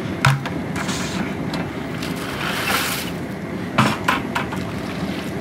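Propane-fired crawfish boiler running with a steady rushing noise, its water at a rolling boil. A few sharp knocks come from the long paddle against the stainless steel pot, one just after the start and a quick cluster near the four-second mark.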